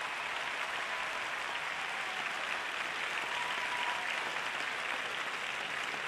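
Large arena audience applauding steadily.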